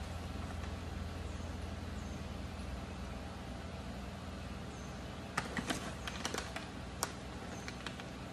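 Handling noises over a steady low hum: a paper supplement bag and a feed pan being handled while feed supplement is measured out, with a cluster of sharp clicks and taps between about five and seven seconds in. Faint short high chirps sound a few times.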